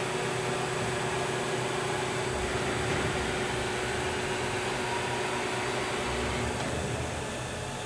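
CNC machining centre (STYLE BT-2000) running: a steady mechanical hum and hiss with one steady tone that stops about six and a half seconds in, the sound dropping slightly after.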